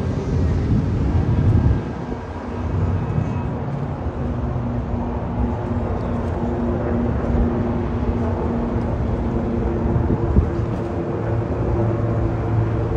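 Steady engine drone with a low rumble and a held hum, over outdoor city background noise.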